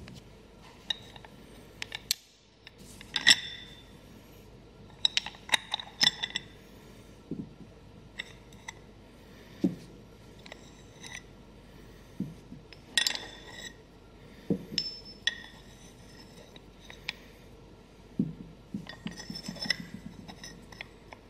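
Steel pistons of a disassembled seven-piston variable AC compressor being lifted out and set down, making irregular metallic clinks and taps, a few of them louder.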